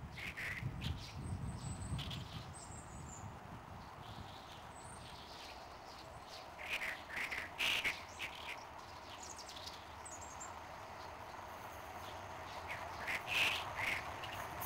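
Birds calling: a few loud calls about seven seconds in and again near the end, with thin high chirps in between. Underneath, a faint steady sound slowly grows near the end as the steam train approaches in the distance.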